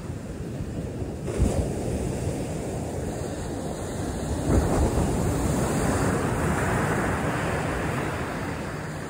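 Ocean surf breaking and washing up the beach, with wind buffeting the microphone. Louder surges come about a second and a half in and again about halfway through.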